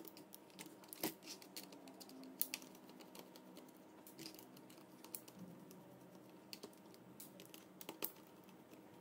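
Faint, irregular clicks and taps of a screwdriver and small screws being worked out of the plastic underside of a Sparki robot, with screws set down on a hard tabletop.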